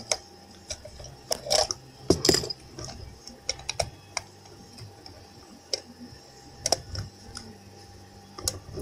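Irregular small clicks and taps of a toy box truck being handled: its plastic rear doors being swung and snapped shut and the model knocking lightly in the hands. A cluster of louder clicks comes about two seconds in, with single ticks scattered after it.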